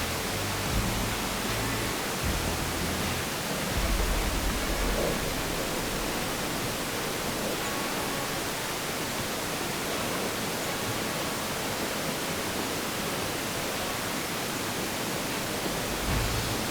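Steady wind hissing across the microphone as a blizzard moves in, with low gusts buffeting the microphone about a second in, around four seconds in and again near the end.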